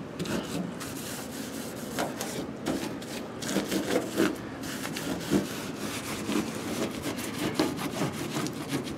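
Rag rubbing and scuffing over rough stitch-welded sheet-metal fender in short, irregular back-and-forth strokes as polyurethane is wiped on.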